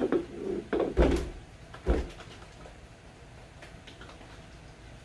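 Plastic jugs of buttermilk being shaken and handled on a wooden table: a quick run of knocks and thumps in the first two seconds, the two heaviest about one and two seconds in, then only faint handling.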